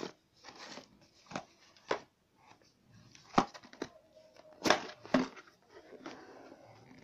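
Corrugated cardboard mailer box handled and opened by hand: scattered taps and knocks of cardboard with soft scraping between, the sharpest knocks a little past three seconds and near five seconds in.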